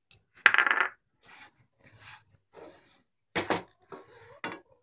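A spatula stirring chopped onions into dry-roasted besan masala in a kadhai, scraping and knocking against the pan. The loudest is a ringing knock about half a second in, with softer scrapes after it and two more knocks near the end.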